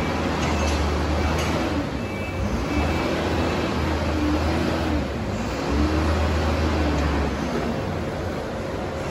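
Forklift engine running and revving up and down as it works, with a couple of short high beeps.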